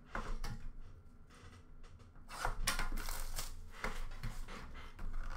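Small trading-card boxes being handled and shifted in a plastic bin: a scattering of light knocks, clicks and rustles, busiest around the middle.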